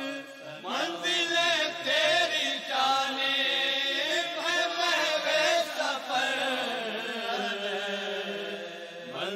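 A solo voice chanting a drawn-out, wavering devotional melody in long held notes with vibrato, part of an Urdu devotional intro chant.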